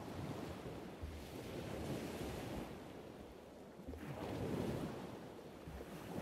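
Wind and ocean surf: a steady rushing noise that swells and eases twice, with wind buffeting the microphone.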